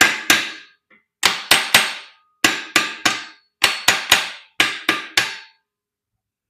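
A hammer tapping metal on an engine bottom end, about fourteen sharp ringing strikes in quick groups of three, loosening a bearing cap on a BMW 650ci's V8 so it can be pried off. The tapping stops about five and a half seconds in.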